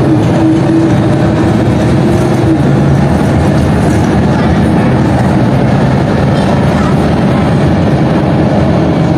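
Vintage Ikarus articulated diesel bus under way, heard from inside the passenger cabin: its engine and drivetrain drone steadily over rattling body and road noise, with a held whine that stops about two and a half seconds in.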